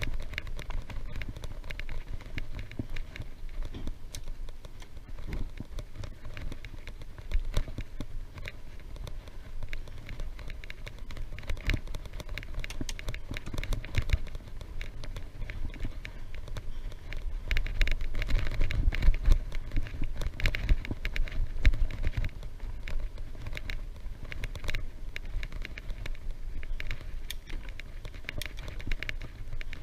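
Wind buffeting the microphone of a camera riding on a moving bicycle: a low, rumbling rush with a steady stream of small clicks and rattles. It swells loudest a little past halfway.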